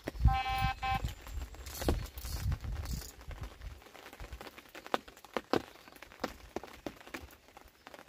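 An electronic carp bite alarm sounds one short, steady beep about half a second in, signalling a take on the rod. It is followed by heavy low bumps from the rod being lifted off the rest and a run of small irregular clicks.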